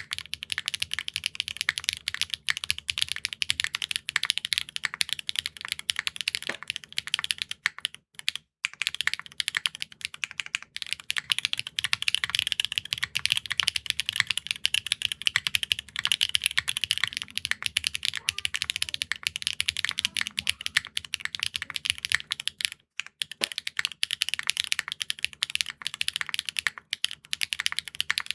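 Fast typing on custom mechanical keyboards with linear switches: a dense, continuous run of keystroke clacks. It breaks off briefly twice, about 8 seconds in and again around 23 seconds.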